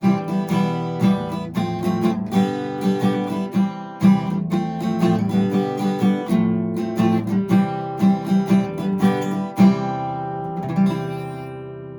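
Acoustic guitar music, plucked and strummed, as an intro tune; it fades out over the last two seconds.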